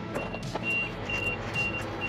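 Vehicle warning beeper sounding a steady, high-pitched beep about twice a second, with music underneath.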